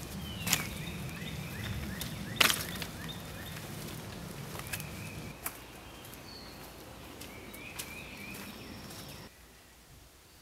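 Outdoor garden ambience with faint, repeated high chirps. Two sharp snaps come in the first few seconds, followed by a few softer clicks. Near the end the ambience cuts off abruptly to much quieter room tone.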